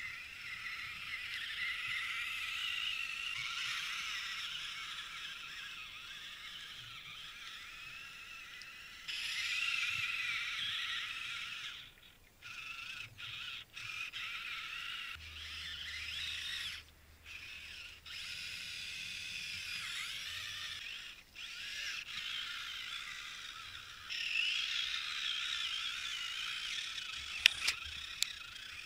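Small electric motor and gears of a Losi Trail Trekker RC crawler whining as it drives, the pitch wavering with throttle and cutting out abruptly several times when it stops and starts. A few sharp clicks near the end.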